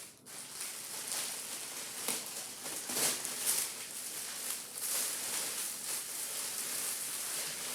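Plastic bag crinkling and rustling as it is handled and opened, with a few louder crackles.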